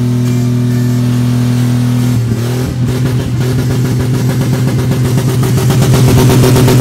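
Car engine running loud and steady, then from about two seconds in its note turns rough and rapidly pulsing, growing louder toward the end as it revs.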